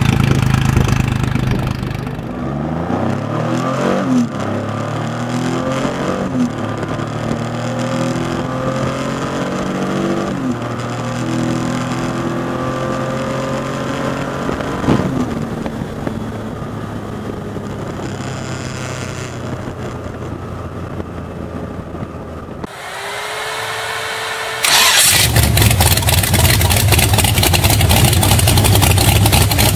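Triumph Rocket III 2300cc motorcycle's inline three-cylinder engine running, then pulling hard through the gears, its revs climbing and dropping at each shift, heard from the rider's seat at road speed. About 23 seconds in it gives way to a brief rising whine, and near 25 seconds a 6000cc Corvette V8 in a custom motorcycle starts and runs much louder.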